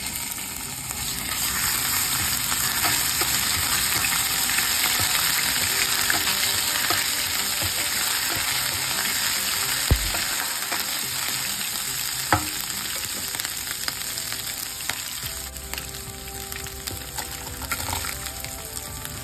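Crushed ginger and garlic sizzling in hot oil with cumin seeds in a non-stick pan, stirred with a spatula. There are two sharp spatula knocks on the pan about halfway through, and the sizzle eases a little near the end.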